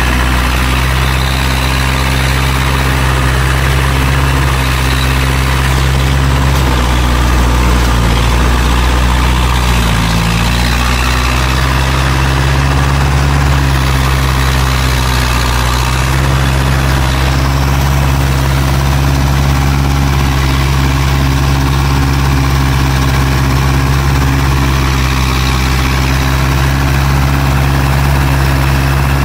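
Engine of a loaded rice-transport cart running steadily as it drives along a field track, a loud low drone that dips briefly about ten seconds in.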